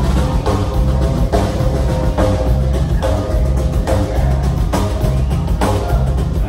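A live band playing: a drum kit keeps a steady beat under a guitar, with a heavy bass end.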